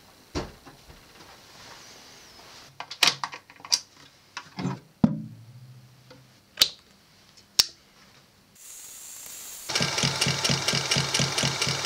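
A scattering of sharp knocks and clacks as a vintage Singer sewing machine and its wooden case are handled and set up. Near the end its electric motor starts to hum, and the machine begins stitching in a fast, steady rhythm of about nine stitches a second.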